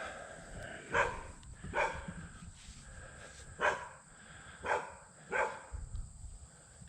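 A dog barking and yelping, five short barks at uneven intervals: a dog left behind at camp, unhappy at being left.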